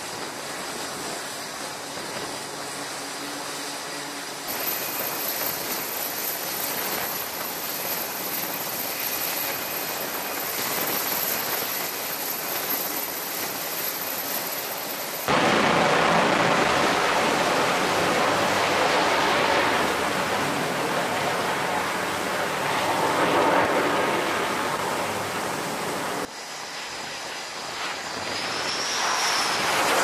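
F/A-18 Super Hornet jet engines running on an aircraft carrier's flight deck, heard as steady jet noise. It changes abruptly several times, and from about halfway through it is much louder and fuller, with a jet at full power on the catapult; near the end the noise builds again.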